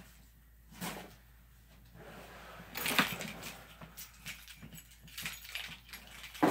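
Cardboard box and packaging being handled: scattered rustles and taps, a louder crackle about three seconds in, a quick run of small clicks after it, and a sharp rustle at the end.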